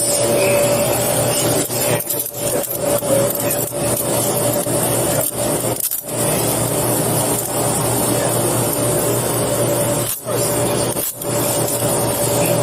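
Continuous scratchy rubbing and scuffing close to a body-worn camera's microphone, as the camera rubs against the wearer's clothing during a handcuffing. A steady hum runs underneath, and the scuffing dips briefly a few times.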